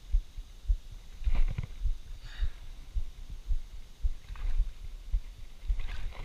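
Irregular dull low thumps and knocks, roughly one or two a second, from movement in and against an inflatable kayak, with a few brief higher rustles or hisses.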